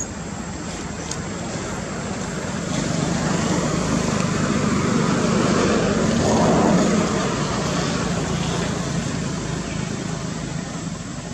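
A motor vehicle passing by: a rumble and hiss that grows louder to a peak a little past halfway, then fades away.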